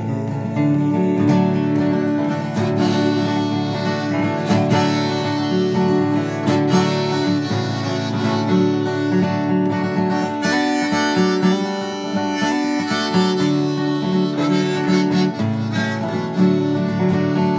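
Harmonica played in a neck rack over a flatpicked Washburn acoustic guitar, a bluegrass-style instrumental with held harmonica notes over picked guitar accompaniment.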